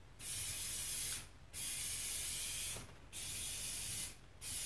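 Aerosol can of clear spray paint spraying a clear coat in bursts of about a second each: three bursts with short pauses between, and a fourth starting near the end.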